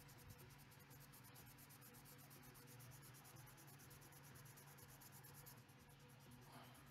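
Faint scratching of a fine-grit sanding sponge rubbed in quick, even back-and-forth strokes over a plastic model kit part, smoothing a puttied seam.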